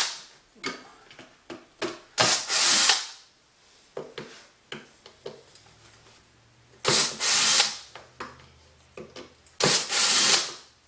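Handheld power drill/driver run in three short bursts, each under a second, with small clicks and knocks of handling between them, typical of driving out screws.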